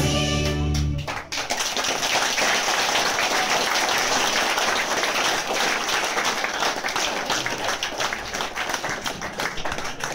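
Folk dance music ends on a held chord about a second in, and the audience breaks into steady applause.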